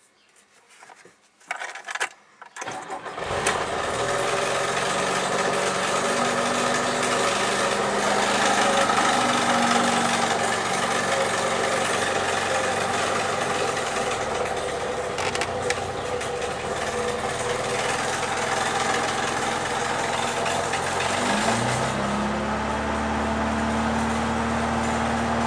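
A four-cylinder engine is cranked and catches about three seconds in, then runs steadily with a noise described as horrific. The noise began after the timing chain and valves were adjusted. The engine's speed shifts once, near the end.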